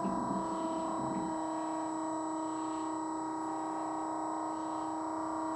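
Battery-powered oil transfer pump's electric motor running with a steady hum.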